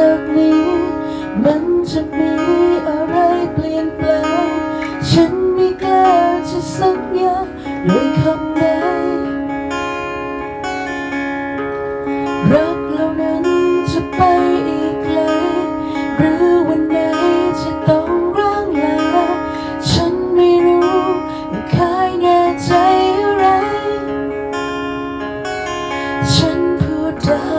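Acoustic guitar playing the instrumental intro of a slow pop ballad, chords strummed and picked over sustained backing notes.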